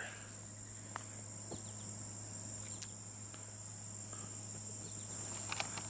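Steady high-pitched chorus of insects, crickets or the like, trilling without a break, over a faint low steady hum.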